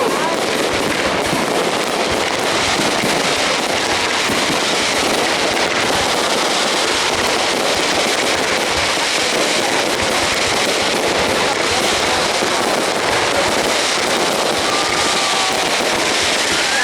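Aerial fireworks display: a dense, continuous crackling and popping of many shells bursting in quick succession, with steady loudness throughout.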